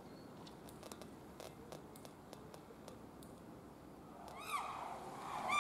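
Two short animal calls near the end, each sliding down in pitch like a wail, over a faint background with a few light clicks.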